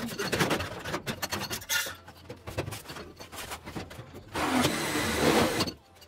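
Rubbing and scraping with scattered clicks and knocks, then a louder stretch of dense rubbing about four seconds in that stops abruptly near the end.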